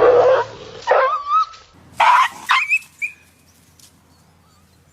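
A dog yelping and whining, about five sharp cries with a wavering pitch in quick succession over three seconds, then dying away. These are yelps of pain from a dog shocked by an electric fence.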